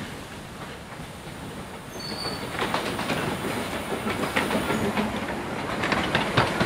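Narrow-gauge steam train passing close by, the engine going past and then its carriages, wheels clicking over the rail joints. The clicking grows louder and busier from about two and a half seconds in.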